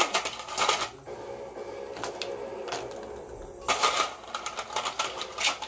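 Hard seashells clicking and clattering against each other and the pot as they are handled and dropped in one by one, in bursts at the start, about four seconds in and near the end. Between the bursts a steady low hiss of the simmering broth.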